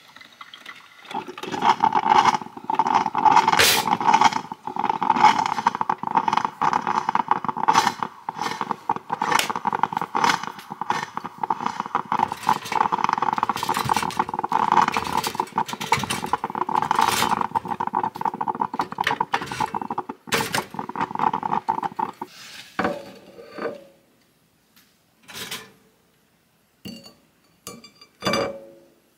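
Drip coffee maker brewing, gurgling and sputtering loudly from about a second in until it stops abruptly a little over 20 seconds in. A few light clicks and knocks follow as toast is set on a plate.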